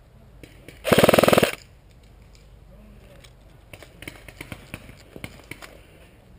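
A short full-auto burst from an electric airsoft rifle (a G36C AEG), a rapid, even string of shots lasting about half a second, about a second in. A few seconds later comes a scatter of light, sharp clicks and snaps.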